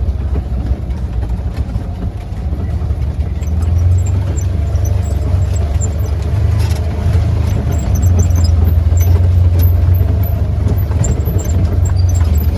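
Engine of a Polaris side-by-side UTV running steadily as it drives along a trail, a low drone that swells a little about four seconds in and again around eight seconds in.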